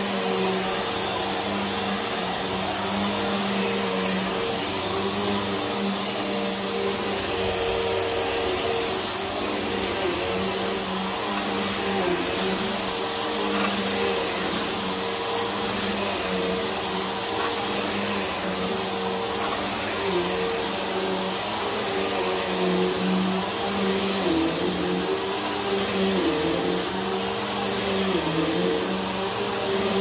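Vacuum cleaner running steadily as it is pushed back and forth over carpet: a constant high whine over the motor's hum, with the lower hum dipping in pitch a few times near the end.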